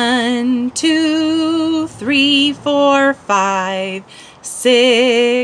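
A woman singing a children's counting song unaccompanied, in a run of long held notes with a wavering vibrato and short breaks between them.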